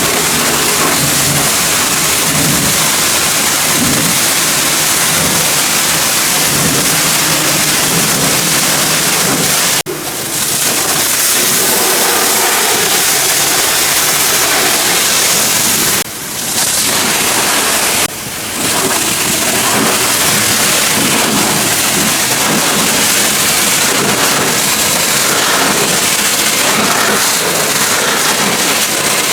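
High-pressure water spray from a pressure washer blasting dirt off a tractor, a steady loud hiss. It stops for a moment about ten seconds in, and twice more later, as the trigger is released and squeezed again.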